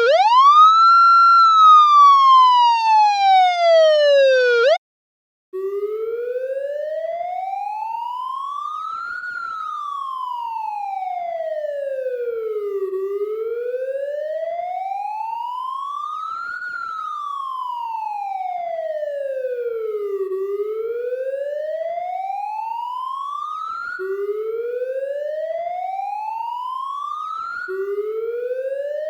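Police car siren wailing: one loud glide up and slowly down that cuts off about five seconds in. After a brief silence a distant police siren wails in slow, even rises and falls of about seven to eight seconds each, quieter than the first, and twice near the end it jumps back to its low pitch and starts rising again.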